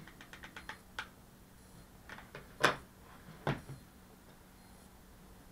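Small tools and parts handled on a workbench: a quick run of light ticks in the first second, a few scattered clicks, then two louder knocks about two and a half and three and a half seconds in.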